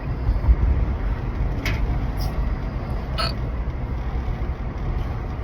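Two short hiccups from a person, about a second and a half apart in the middle, over a steady low rumble.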